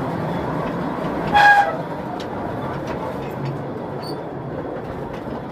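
Mine tour train running along the rails with a steady rumble, and a short, loud, high-pitched squeal about a second and a half in from the wheels, which need lubricating.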